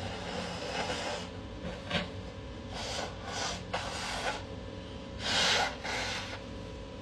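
A person sniffling and breathing sharply through the nose during a sneezing fit, a run of short sniffs with a longer, louder one about five and a half seconds in.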